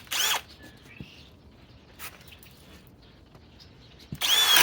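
Cordless drill motor whirring in a short burst that spins up and winds down, then a lull with a few faint knocks. Near the end the drill starts up again and runs steadily, boring a 1 1/8-inch spade bit into wood.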